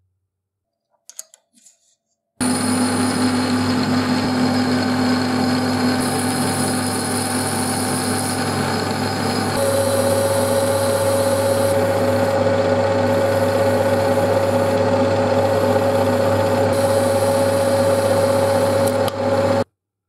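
Metal lathe running and machining a round metal bar with a cutting tool: a steady motor hum under a cutting whine, with a tone that changes pitch about halfway through. It starts and stops suddenly.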